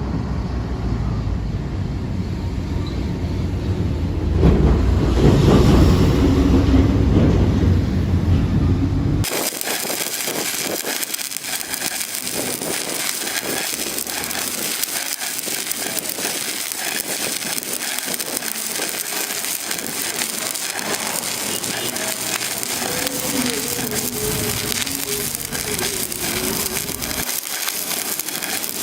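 A low rumbling background with a voice in it, loudest for a few seconds near the middle of that stretch, cuts off about nine seconds in. Steady crackling and sizzling of a welding arc on pipe follows and runs to the end.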